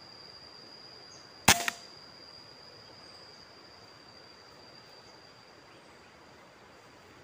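A single shot from a PCP air rifle about a second and a half in: a sharp crack followed by a smaller snap a moment later. A steady high-pitched insect drone runs underneath and fades toward the end.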